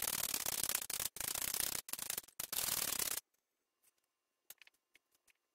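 Stainless steel hand flour sifter rasping steadily as flour is worked through its mesh, broken twice briefly and stopping a little over three seconds in. A few faint light ticks follow near the end.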